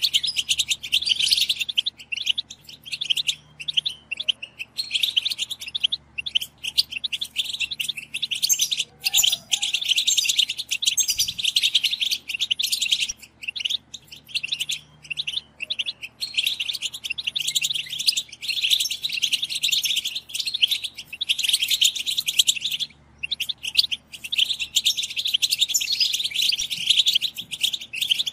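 Several European goldfinches chattering together: a dense, unbroken stream of rapid high twittering calls with brief pauses. It is a group goldfinch chatter recording of the kind played to excite caged goldfinches into singing.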